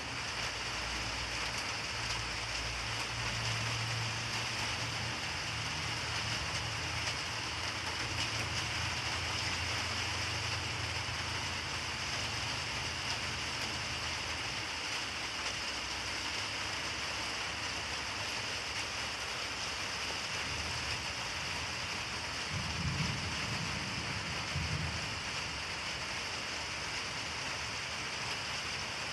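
Steady rain hissing throughout, with low rolling thunder rumbling through the first half and a shorter, louder thunder rumble about three-quarters of the way in.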